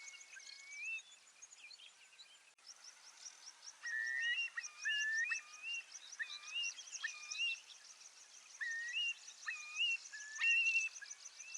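Eurasian curlew calling: a series of short rising whistled 'coor-lee' notes, most of them from about four seconds in. A rapid, high insect trill runs behind them.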